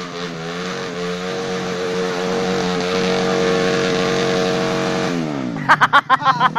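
Trail motorcycle engine revving hard and steady under load on a climb, then the revs fall away sharply about five seconds in. A quick run of sharp, loud short sounds follows near the end.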